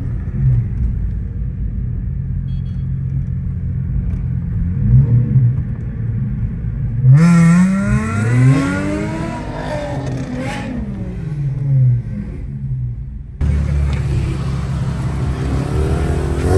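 Car engines running steadily. About halfway through, one engine revs up sharply and then falls back over several seconds. Near the end the sound changes abruptly to a different steady engine hum.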